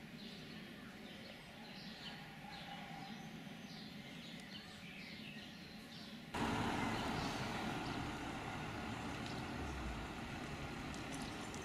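Birds chirping over a faint outdoor background. About six seconds in this gives way abruptly to louder street ambience with road traffic, and a low rumble of a passing vehicle near the end.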